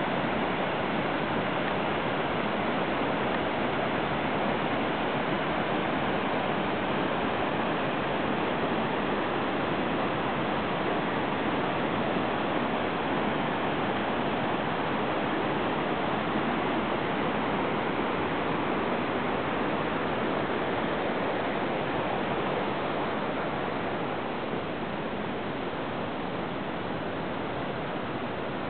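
Mountain river rushing over boulders and small cascades: a steady, even rush of water that eases slightly near the end.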